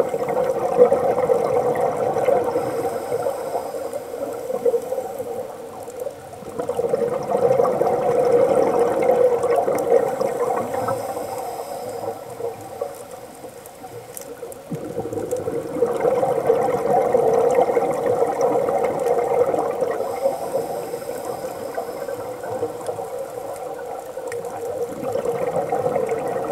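Scuba divers' exhaled air bubbling out of a regulator underwater, in long surges that swell and ease every several seconds with the rhythm of slow breathing.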